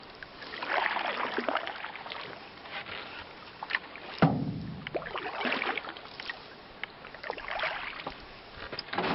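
Canoe paddle strokes: the paddle swishing and splashing through the water in three or four strokes a few seconds apart, with a sharp knock about four seconds in.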